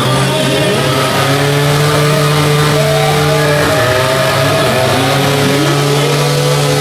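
BMW stunt motorcycle engine held at high revs during a stationary burnout, its rear tyre spinning on the tarmac. The engine note stays fairly steady, with small rises and dips in pitch.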